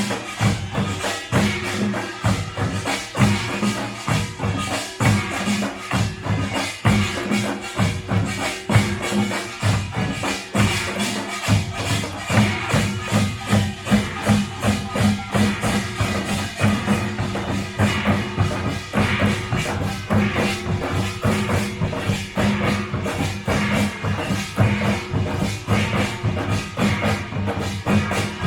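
Korean nongak (pungmul) farmers' band playing, drums and gongs beating a fast, dense rhythm without a pause.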